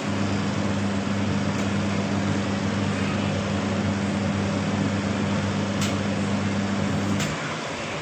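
Semi-automatic washing machine's spin dryer running on a newly fitted spin timer: a steady motor hum over a rushing whir. The hum cuts off with a click about seven seconds in, while the whir carries on.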